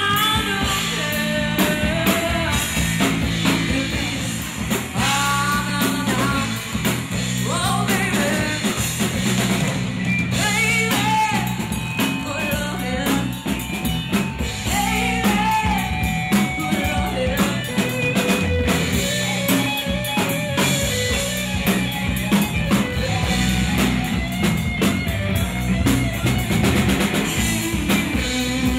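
Live rock band playing: a woman singing over electric guitar and a drum kit.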